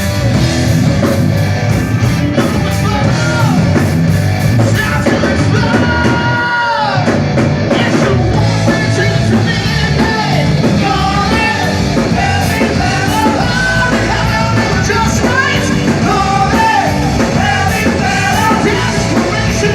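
Live hard-rock band playing loud, with a singer over guitar, bass and drums. About six seconds in, a falling glide sounds as the bass and drums drop out for a moment.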